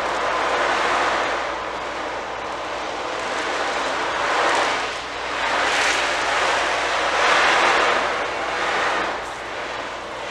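Ocean drum tilted back and forth, its beads rolling across the drumhead in surf-like washes that swell and fade every second or two.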